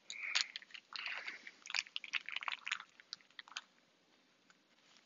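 Kitchen scissors snipping through a plastic rice pouch: a quick run of crisp snips and crinkles for about three and a half seconds.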